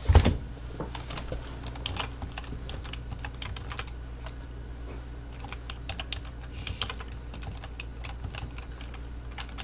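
Typing on a computer keyboard: irregular key clicks, opening with one louder thump. A steady low electrical hum runs underneath.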